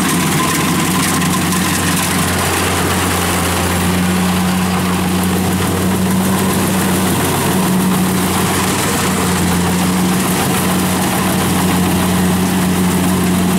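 Kubota DC-70 rice combine harvester running steadily under load while cutting and threshing rice: a loud, even engine drone with a constant low hum.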